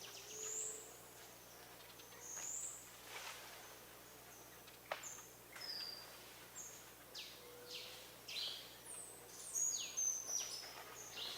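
Wild birds calling with short, high-pitched chirps and whistles, a few of them falling in pitch, coming more often in the second half.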